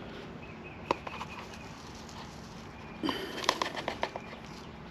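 Plastic coffee grinder parts being handled: a single click about a second in, then a cluster of light clicks and knocks between three and four seconds in.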